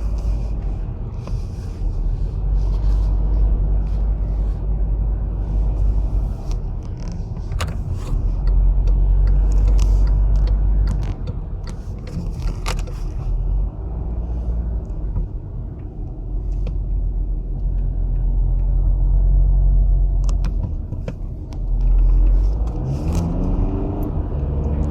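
Volkswagen Passat 2.0 turbo diesel being driven: a steady low engine and road rumble, with the engine note rising near the end as it picks up speed.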